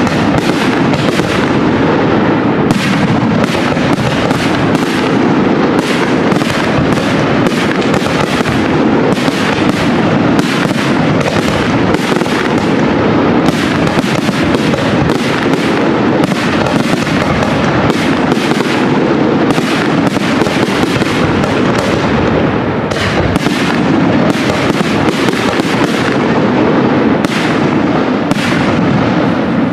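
Aerial fireworks shells bursting in a dense, continuous barrage: several sharp bangs a second overlapping one another over a steady rumble.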